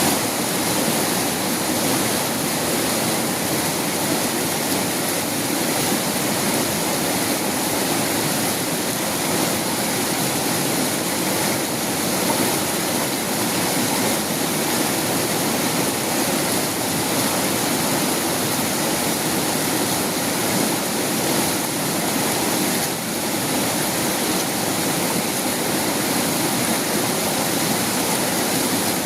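Fast-flowing river water rushing steadily, an even, unbroken sound of swift current.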